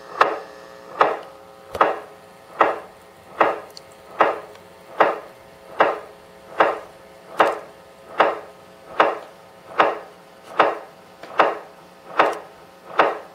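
A sharp percussive hit repeating on an even beat a little more than once a second, each hit ringing briefly with a pitched tone. Under it runs a steady hum of held tones.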